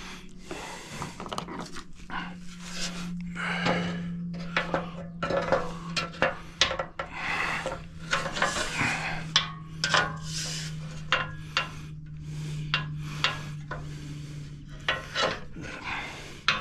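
Metal roof-rack hardware and parts clinking, rattling and scraping in short irregular bursts as they are handled and fitted by hand, over a low steady hum.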